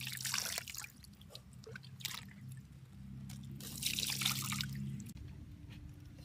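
Water being poured over a skinned snake in a metal wok, splashing and trickling in several bursts as hands rinse it. The longest pour comes about three and a half seconds in, and the sound stops abruptly about five seconds in.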